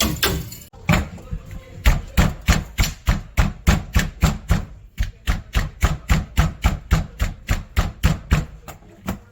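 Knife chopping on a cutting board in quick, even strokes, about three to four a second.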